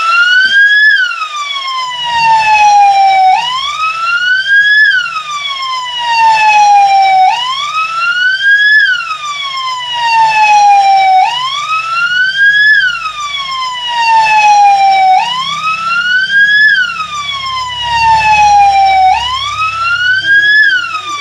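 PMDF (Brazilian military police) siren sounding a wail: each cycle rises quickly in pitch for about a second, then falls slowly for about three, repeating about every four seconds.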